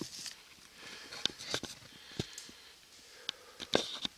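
Footsteps crunching through dry leaf litter and brush, with irregular crackles and twig snaps.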